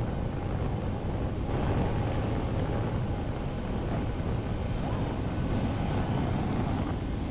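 Steady jet aircraft noise on an airport apron, an even roar heaviest in the low end with a thin high whine running through it.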